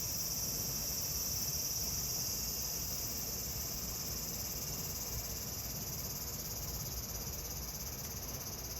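A chorus of summer cicadas singing steadily in a high-pitched drone.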